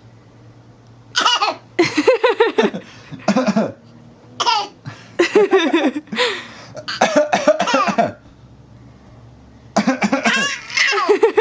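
Short coughs traded between an adult and a baby copying them, mixed with laughter, in about six bursts with pauses between.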